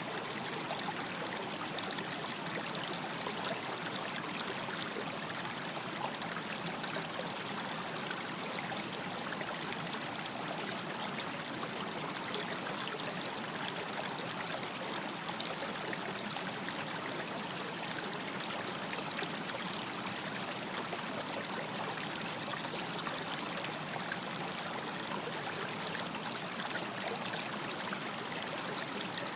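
Stream of running water flowing steadily over stones, an even rushing and trickling with no breaks.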